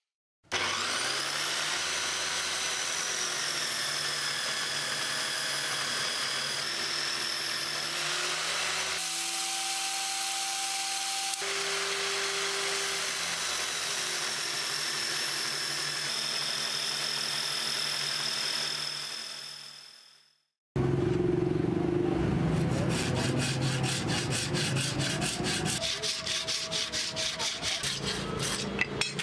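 Handheld electric sander running steadily with a whining motor, sanding down a steel cleaver blade; it fades out about 20 seconds in. After a short silence, a different busy workshop sound follows, with rapid, regular scraping strokes of a hand tool on a wood block near the end.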